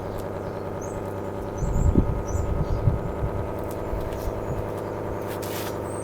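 Reworked windup air raid siren running at a low, steady speed, giving a steady grainy tone with several overtones. The granulator-like timbre comes from its unevenly spaced stator ports. A few knocks sound around two seconds in.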